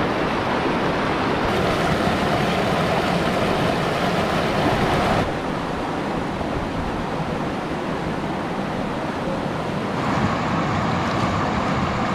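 Creek water rushing over rapids, a steady whitewater rush whose level shifts abruptly a few times.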